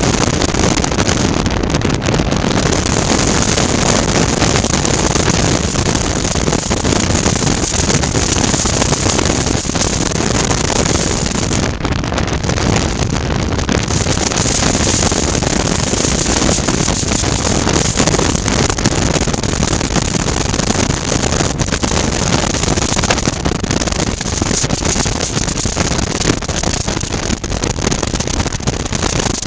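Steady wind rush over a helmet-mounted camera at road speed, with a 2019 Suzuki V-Strom 650's V-twin engine running underneath at a steady cruise.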